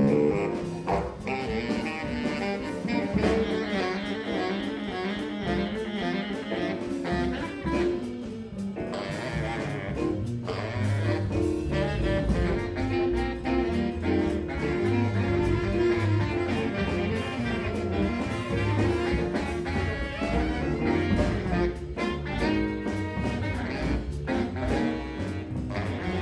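Background music: a jazz piece with saxophone and brass over a steady beat.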